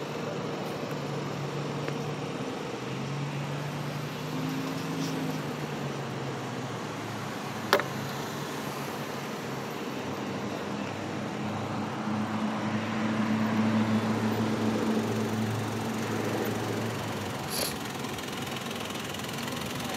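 Car engines idling and creeping through a traffic stop, the engine note shifting and swelling as vehicles move up, over a steady traffic hum. A single sharp click about eight seconds in.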